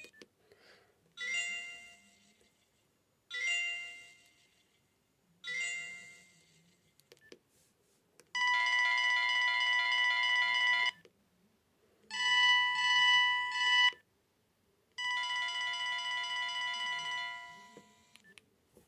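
Toshiba TS21i mobile phone playing its stock monophonic ringtones through its small speaker. First three short decaying beeps about two seconds apart, then three longer steady buzzy tones of about two to three seconds each, with short gaps between them.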